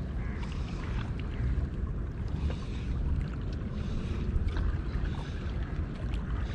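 Wind rumbling on the microphone over the wash of calm sea water, with a few faint ticks.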